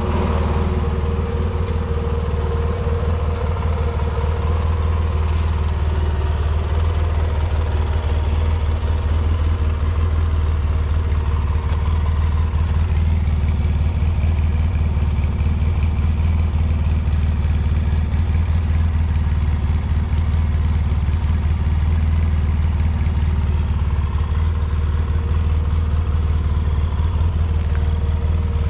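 2005 Polaris Sportsman MV7 military ATV's engine idling steadily.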